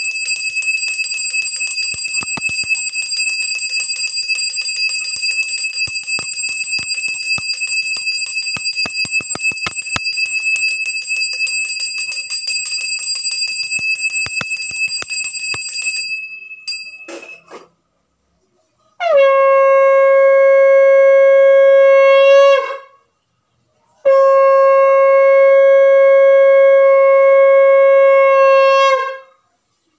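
Puja hand bell rung steadily for about sixteen seconds, the clapper striking rapidly and the bell ringing a high steady tone. A few seconds later a conch shell (shankha) is blown in two long, steady blasts.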